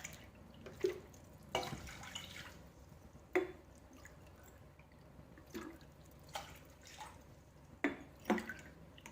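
Water poured from a cup into a large pan of sugar, heard as several short splashes with pauses between them.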